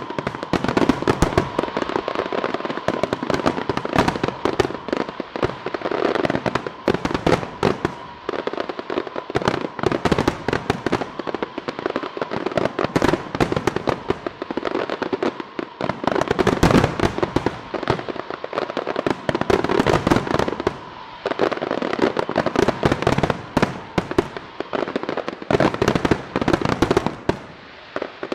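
Aerial fireworks shells, up to 150 mm calibre, bursting in a dense, unbroken barrage: many bangs a second mixed with crackling, with no pause between them.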